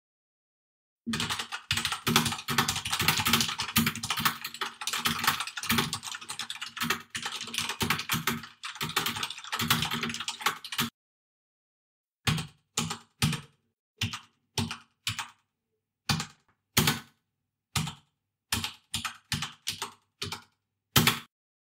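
Typing on a computer keyboard: a fast, dense run of keystrokes for about ten seconds, then a short pause and slower, separate key presses, roughly two a second.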